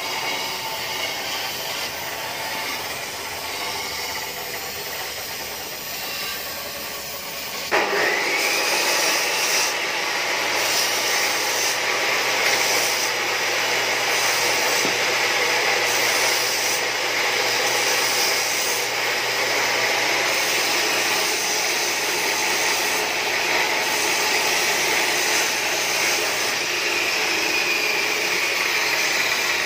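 Gas welding torch hissing steadily, its flame blown into a stock Yamaha Lexi muffler can to burn out the internal baffles. About eight seconds in there is a sharp click and the hiss becomes louder.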